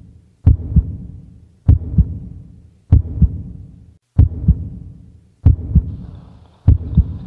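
Heartbeat sound effect: a slow, steady lub-dub, each beat a double thump, repeating about every one and a quarter seconds.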